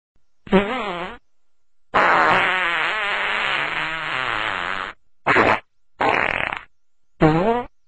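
Fart sound effects, five in a row with wavering pitch: a short one, a long one lasting about three seconds, then three short ones.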